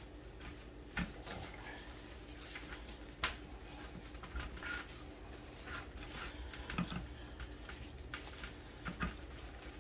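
Gloved hands rubbing olive oil into a raw tomahawk steak on a wire rack over a metal sheet pan: faint handling sounds with a few scattered light clicks and taps, over a steady low hum.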